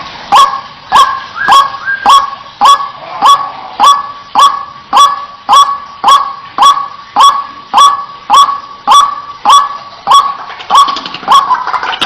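White-breasted waterhen (ruak-ruak) calling a loud, monotonous 'kwak' over and over, just under two notes a second, each note a sharp start that settles onto a short held tone. This is a lure-call recording used to draw the birds in.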